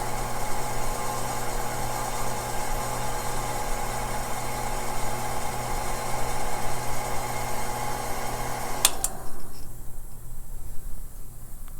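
A faceting machine's motor and spinning lap run with a steady hum while a peridot's table facet is held by hand flat against the lap and ground. About nine seconds in there is a sharp click, and the machine sound drops away.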